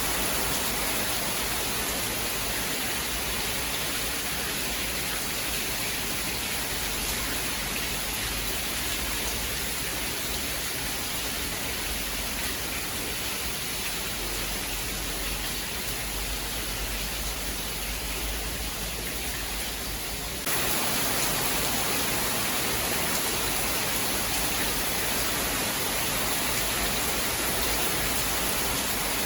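Steady rain, an even hiss with no thunder strikes. About twenty seconds in it steps up abruptly, louder and brighter.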